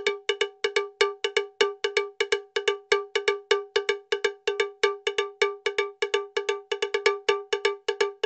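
A bright, bell-like metallic strike at one fixed pitch, repeating in a steady looped pattern about five times a second. It is an added backing track, not the sound of the wire work.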